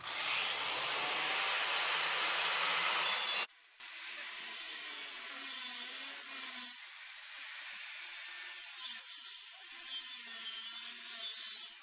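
Hand-held power tool cutting steel, a steady cutting noise that stops briefly about three and a half seconds in, then starts again a little quieter.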